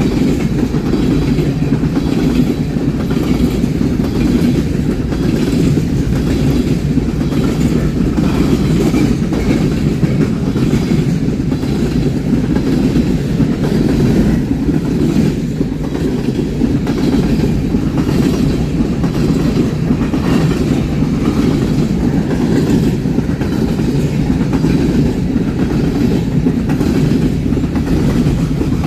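Railroad cars rolling past at close range: a steady, loud rumble with the wheels clicking rhythmically over rail joints.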